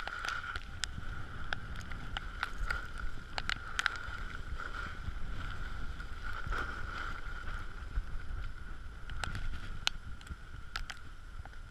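Skis running over packed snow, heard from a camera carried by a skier: a steady hiss with wind rumbling on the microphone and scattered sharp clicks.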